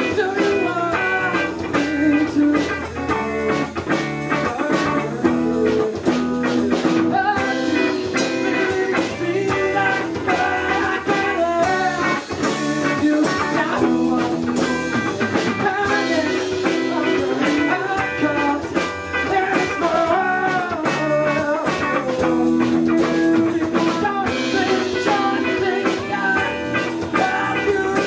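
Live rock band playing a bluesy song, with an electric guitar melody over bass and drums.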